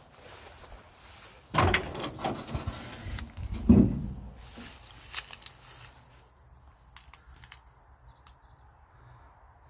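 The steel cab door of a 1950 Ford F1 pickup being worked open: a sudden clunk about a second and a half in, a run of uneven metal knocks, then the loudest thud near four seconds as it comes open. A few faint clicks follow.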